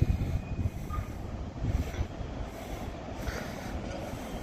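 Distant diesel-hauled coal train approaching: a steady low rumble, loudest at the start, with a faint thin squeal in the first second or so.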